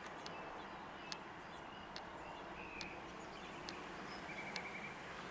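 Faint outdoor background noise with a few short, distant bird chirps, including a quick trill near the end, and several soft scattered clicks.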